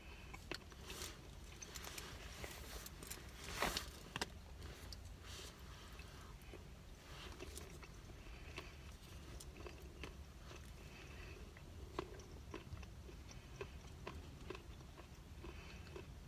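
Faint eating sounds: a teaspoon clicking and scraping in a cup of salted-caramel dessert, with quiet chewing. A brief louder noise comes about three and a half seconds in.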